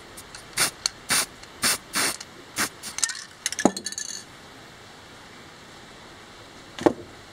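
Metal bandsaw wheel parts clinking and clacking as they are handled and fitted on the wheel's shaft: about a dozen quick sharp clicks in the first four seconds, the last with a brief metallic ring. Then a single knock near the end.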